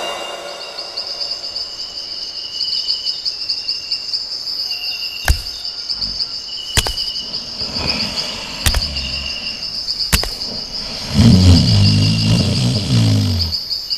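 Steady insect chirping in a nature soundscape, with short bird chirps on and off and four sharp clicks. Near the end a louder, low pitched sound comes in for about two seconds.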